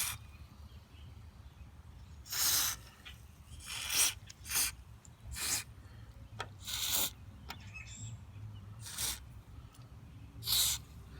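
Aerosol can of white lithium grease spraying in about seven short hissing bursts onto the pivot and pressure points of a hood latch, over a faint low hum.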